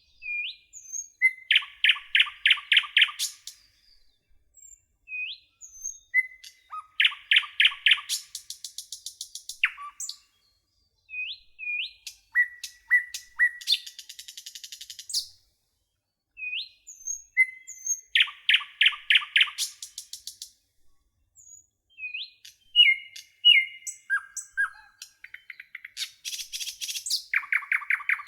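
A songbird singing, repeating a phrase of a few short upward-sweeping notes that run into a fast trill, phrase after phrase with short pauses between.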